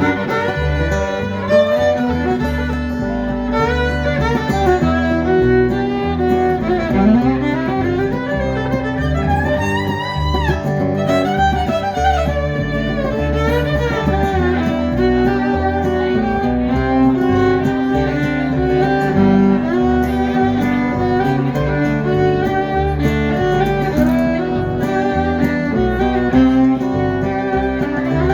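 Live country band playing an instrumental break, a fiddle taking the lead with sliding notes over guitar and bass.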